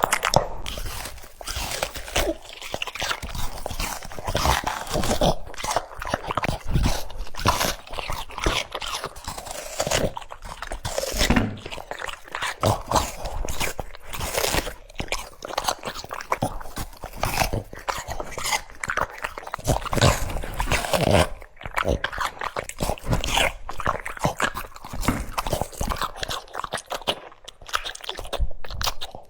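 French Bulldog crunching and chewing raw cucumber: dense, irregular wet crunches, one after another, close to the microphone.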